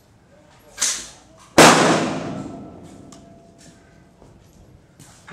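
A Smith & Wesson Bodyguard 380 .380 ACP pocket pistol fires one loud shot about a second and a half in, with a long ringing decay afterwards. A fainter, sharper crack comes just under a second before it.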